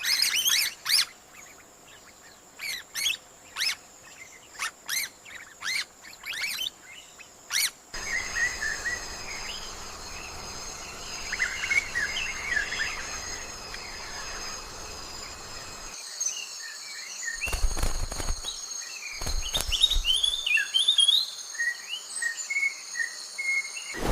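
Wild birds chirping and calling in short notes over a steady high insect drone. Sharp clicks come through the first third, and two dull thumps come about two-thirds of the way in.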